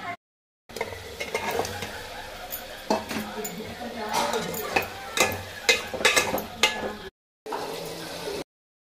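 Chicken pieces sizzling in a metal pot while a metal spoon stirs them, scraping and clinking against the pot. The sound drops out briefly three times.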